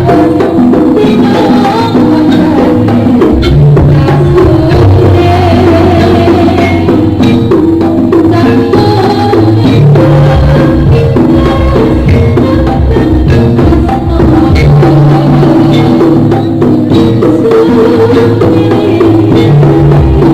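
Live jaranan gamelan music: drums and gongs with pitched metal percussion playing a steady, interlocking rhythm.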